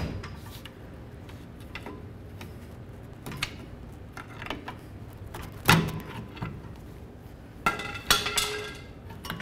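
Metal-on-metal clicks and knocks as a pry tool works the driveshaft's rear U-joint out of the rusty differential yoke. There are scattered light clicks, one sharp knock about six seconds in, and a short run of ringing metallic clinks near the end.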